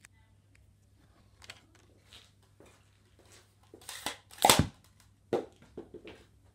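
Small handling clicks and rustles, then one loud sharp pop about four and a half seconds in, a Nerf blaster firing a foam dart, followed by a smaller knock about a second later.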